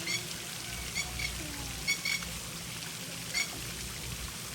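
Birds chirping: short, high, repeated chirps about once a second over a steady background hiss.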